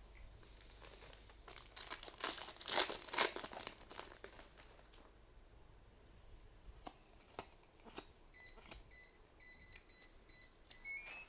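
A foil trading-card booster pack crinkling and tearing as it is opened, loudest in the first few seconds, then scattered clicks as the cards are handled. A faint, high, on-and-off beeping comes in during the last few seconds.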